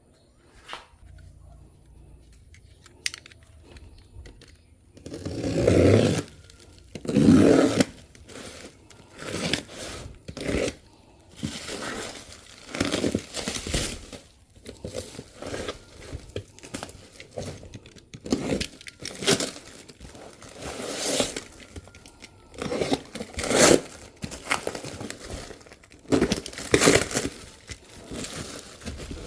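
Packaging being torn open and crumpled by hand while unboxing a motorcycle exhaust. It starts quiet with a few faint rustles, then about five seconds in comes a run of irregular tearing and crinkling bursts.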